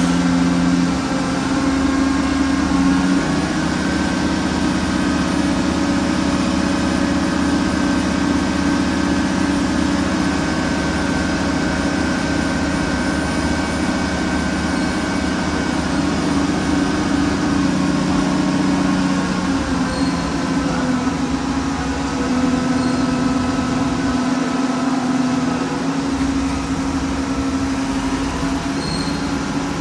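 A heavy machine's engine running steadily with a low, even hum, its pitch shifting slightly a few times.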